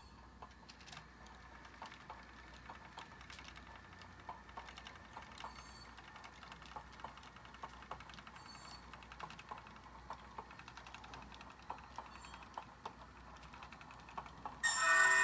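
Sound decoder in an HO scale caboose playing a soft, irregular clickety-clack of wheels over rail joints as the car rolls. Near the end a loud horn blast from the same decoder's speaker cuts in, sounded along with the consisted engine's horn.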